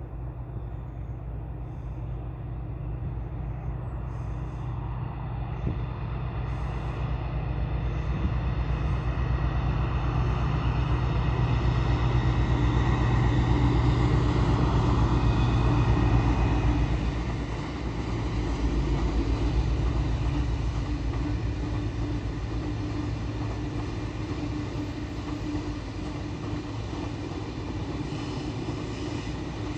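Freight train of Drax biomass hopper wagons passing at a distance: a low locomotive drone builds to its loudest just past halfway and drops off sharply, then the long rake of wagons rolls steadily by.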